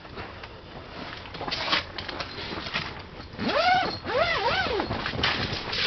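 Scraping and rustling of line and gear as a whitefish is brought up into a hole in the ice. About three and a half seconds in, a high wavering cry rises and falls twice.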